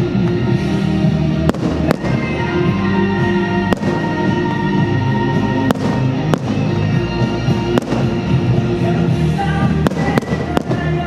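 Fireworks bursting in sharp bangs, one every second or so at irregular intervals, over loud music playing steadily.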